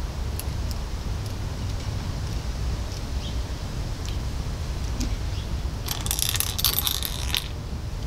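Small metal hardware (screws and bolt pieces for a bar-end mirror mount) clicking now and then as it is handled. About six seconds in it gives way to a second and a half of dense clinking and jingling, over a steady low background rumble.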